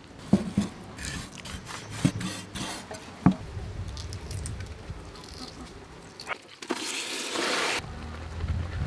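Kitchen knife knocking on a wooden cutting board several times while cutting tofu, then about seven seconds in a burst of hiss lasting about a second.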